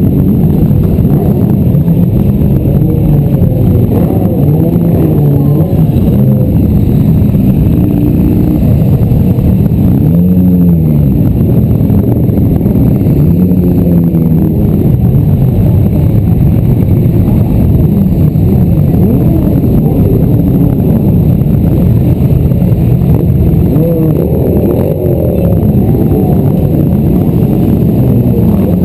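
Engines of a large pack of sport motorcycles running at low speed, with many overlapping revs rising and falling as riders blip their throttles.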